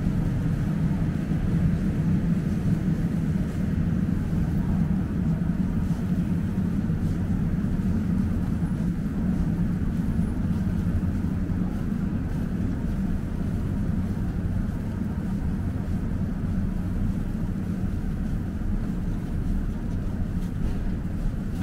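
Steady low rumble of city street ambience, with no distinct events.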